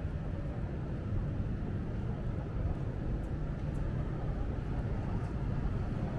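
Steady low rumble of city street ambience, with a few faint high ticks midway.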